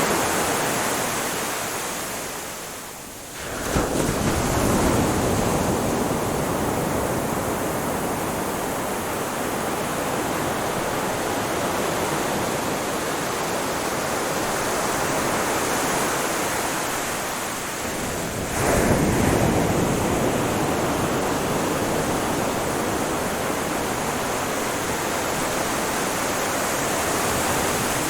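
Ocean surf washing steadily on a shore, with two waves breaking suddenly, about three and a half seconds in and again about eighteen seconds in.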